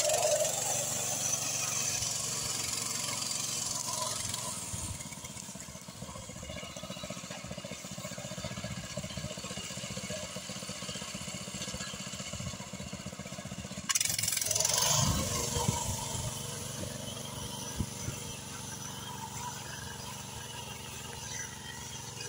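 Walk-behind tractor engine of a homemade trike running as the trike is ridden, growing quieter about five seconds in and abruptly louder again about fourteen seconds in.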